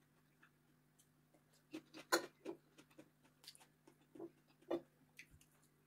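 Metal fork and spoon clicking and scraping against a ceramic bowl of noodles while eating, a scatter of faint sharp ticks with the loudest about two seconds in. A faint steady low hum runs underneath.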